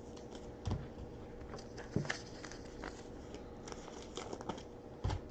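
Trading cards and their wax-pack wrapper being handled: light clicks and crinkling, with three soft knocks on the table, the loudest about a second in, another about two seconds in and the last near the end.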